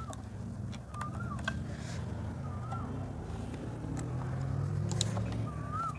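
Low steady rumble of a vehicle engine, growing a little louder about four seconds in, with a few faint clicks from the hand cutter being shifted on the wooden board.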